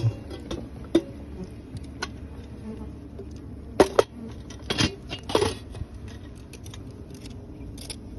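A knife cutting wild honeycomb and clinking against a metal pot: a few sharp metallic clicks and taps, the loudest a little under 4 s and around 5 s in.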